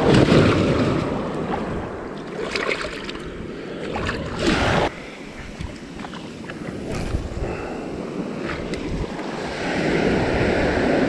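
Shallow ocean surf washing up the sand and swirling around a wader's legs: a continuous foamy rush, loudest at the start, with a brief louder surge about four and a half seconds in, and building again near the end.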